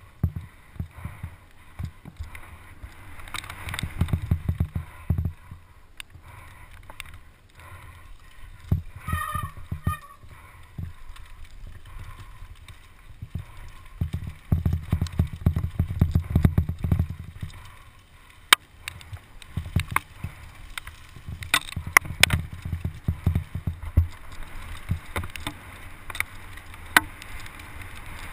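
Mountain bike descending a rough dirt trail at speed, heard from a helmet-mounted camera: the frame and parts rattle and knock over bumps, with surges of low rumble from tyres and rushing air. Sharp knocks stand out, the loudest about eighteen and twenty-two seconds in.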